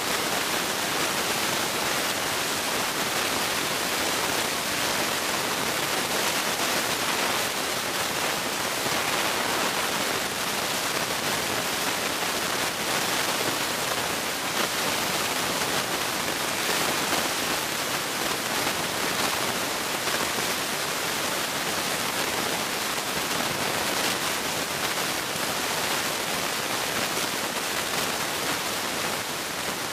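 Steady, even hiss like static, with no separate sounds standing out.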